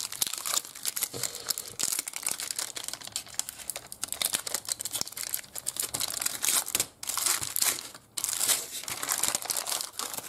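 Shiny foil wrapper of a 1995 Spawn Widevision trading-card pack crinkling and tearing as the pack is opened, with two brief pauses about seven and eight seconds in.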